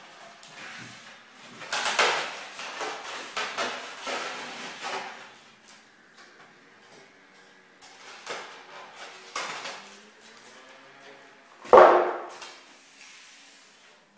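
Handling noise from unpacking a boxed die-cast model car: irregular rustling and light knocks of plastic and cardboard, with one sharp, loud knock about twelve seconds in.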